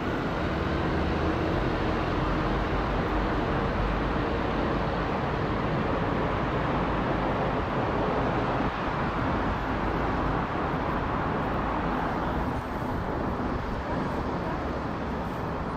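Jet engine roar of a British Airways Boeing 777-200ER airliner flying overhead: a steady, even roar that eases slightly near the end.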